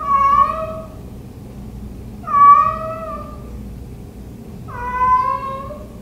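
A black-and-white domestic cat meowing three times, each call about a second long and a couple of seconds apart, as it calls out while left home alone.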